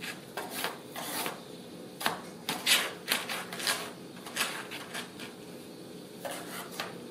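A Ragdoll cat shifting and pawing about inside a cardboard box, the cardboard scraping and rustling in irregular bursts, busiest in the middle.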